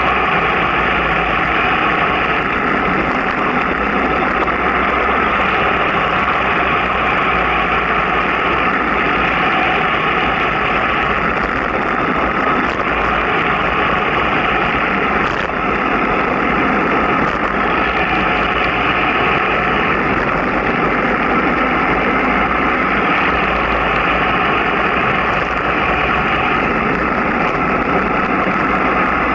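Steady rushing wind and road noise from a vehicle rolling down a mountain road at about 30–37 km/h, with a low rumble underneath.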